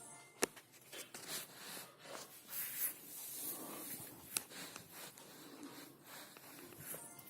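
Faint handling noises: a few scattered light clicks and some soft rustling, as of things being moved about by hand.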